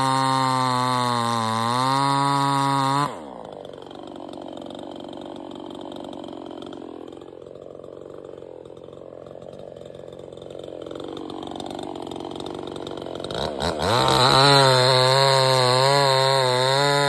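58cc two-stroke gasoline chainsaw running at high revs, then abruptly dropping to a much quieter, lower sound about three seconds in. After a few short blips it revs back up to full speed near the end.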